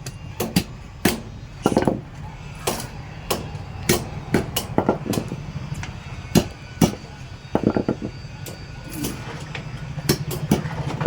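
Repeated sharp knocks at irregular intervals, about one or two a second, over a steady low hum.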